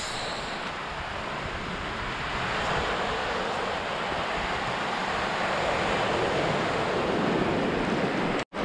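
Surf washing up the beach: a steady rush of small waves breaking in the shallows, swelling louder over the last few seconds, then breaking off suddenly just before the end.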